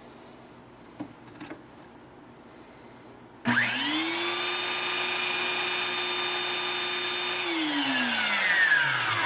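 Power Fist portable belt sander, mounted upside down as a stationary sander, switched on a little over three seconds in and running steadily with a high motor whine, then switched off and spinning down with a falling pitch near the end. A small knock comes about a second in.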